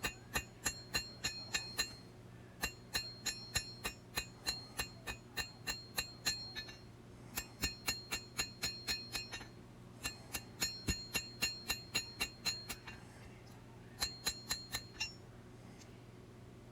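Hand hammer striking hot steel on an anvil, drawing out the bevels near the tip of a double-edged blade. The blows come in five runs of steady strikes, about three a second, each with a bright metallic ring, with short pauses between runs.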